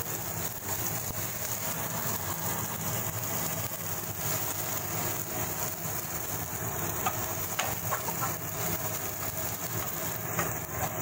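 Tomato-onion masala with ground spices sizzling steadily in a pan on a gas stove, over a steady low hum. A few light clicks come in the last few seconds.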